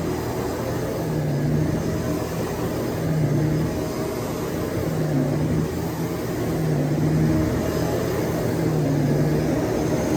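Shark DuoClean PowerFins vacuum cleaner running steadily, its low motor hum swelling and easing about every two seconds.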